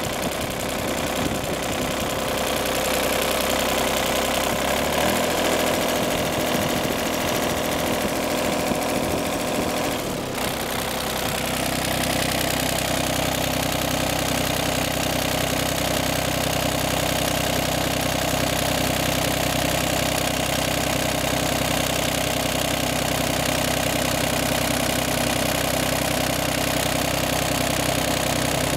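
Yanmar 3TNE82A three-cylinder diesel engine of a John Deere 3215B fairway mower running, heard close up with the hood open. Its note shifts about ten seconds in, then holds steady.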